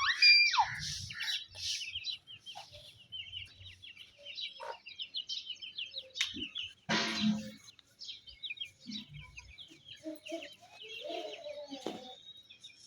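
Chickens calling while feeding: chicks peeping over and over, with a hen's deeper clucks near the end.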